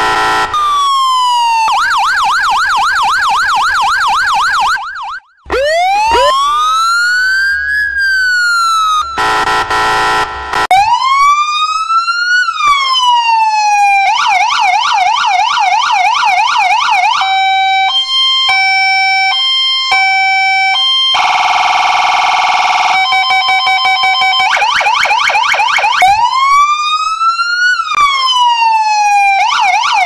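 A run of US fire truck and police car sirens, one pattern after another: steady blaring horn-like tones, a slow wail rising and falling, a fast warbling yelp, a stepped two-note hi-lo, and rapid pulsing. Several of the wails speed up into the yelp.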